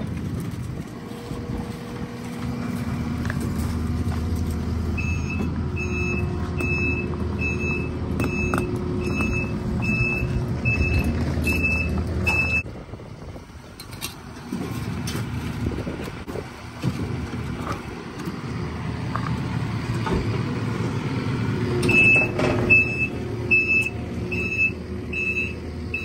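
Takeuchi TL12V2 compact track loader's diesel engine running while the machine moves, with its reverse alarm beeping steadily at about three beeps every two seconds. The beeping stops partway through and starts again near the end.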